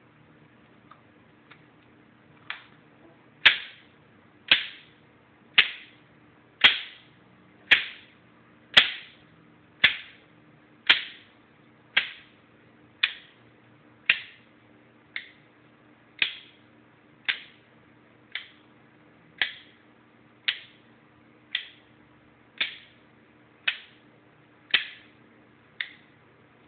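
Mechanical seven-segment flip-digit display clacking as its segments flip over to change digits, one sharp clack about every second with a short ring after each. Two faint ticks come first, then the regular clacks begin about two and a half seconds in and vary a little in loudness.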